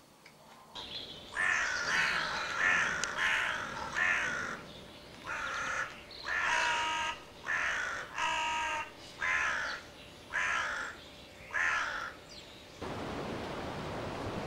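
Faulhaber crow call blown in a series of about ten harsh caws, some short and some drawn out. Near the end the calls stop and steady wind noise takes over.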